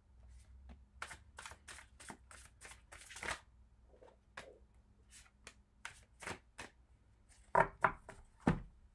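A deck of tarot cards being shuffled and handled, making a run of irregular crisp card snaps and slaps, with two louder knocks near the end.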